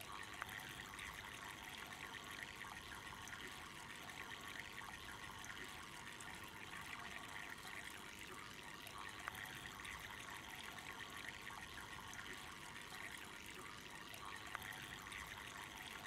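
Water trickling steadily from the small spouts of a homemade tabletop fountain built from welded metal pipes made to look like bamboo, falling into the water-filled pipe cups and basin below.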